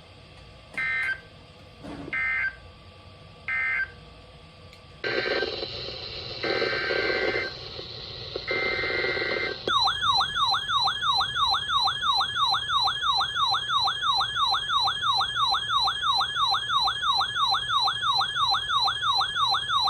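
Emergency Alert System header: three short data-burst screeches, then three more over a noisier background. They are followed by a loud warbling alert tone that sweeps up and down about three times a second, signalling that a new warning is about to be read.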